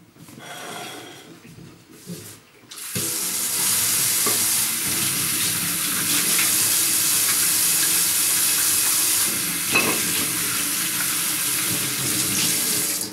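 Steady rush of running water, like a tap turned on full. It starts abruptly about three seconds in and stops suddenly near the end.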